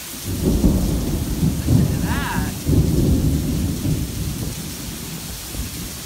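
A rolling peal of thunder that builds just after the start, rumbles for several seconds and eases off near the end, over the steady hiss of torrential rain.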